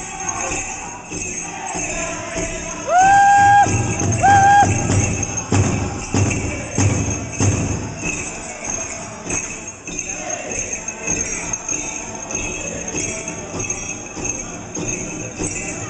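Pow wow drum group drumming and singing a chicken dance song, with the steady jingling of the dancers' leg bells. About three and four seconds in come two loud, high, held calls.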